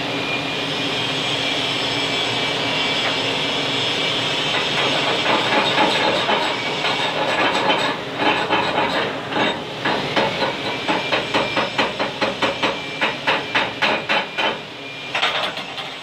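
Stick-welding arc hissing steadily for the first few seconds. From about five seconds in it gives way to sharp metal strikes at about two to three a second, typical of a chipping hammer knocking slag off the fresh weld.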